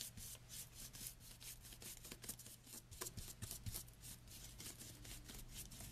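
A stiff natural-bristle flat brush scrubbing over the flat painted surface of a bunny cutout in quick, short strokes, about five a second, in a dry-brushing pass with almost no paint on the bristles.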